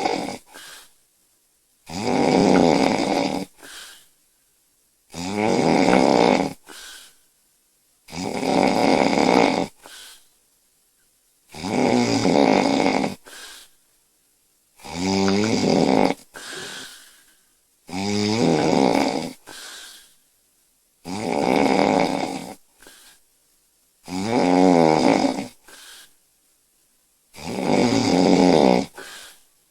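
A sleeping woman snoring loudly in a steady rhythm. A long, rattling snore comes about every three seconds, about ten in all, and each is followed by a short, quieter breath sound.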